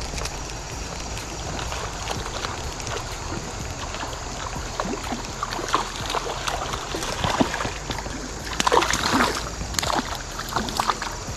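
Steady flow of a swollen creek with scattered small clicks and splashes. About nine seconds in comes a burst of splashing as a hooked trout thrashes at the surface.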